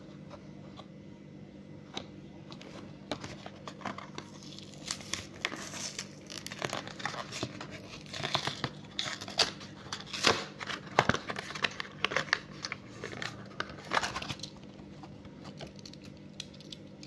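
Hot Wheels blister pack being torn open by hand: irregular crinkling, crackling and snapping of the clear plastic blister and the cardboard card behind it. It starts a couple of seconds in, is heaviest in the middle, and stops a few seconds before the end.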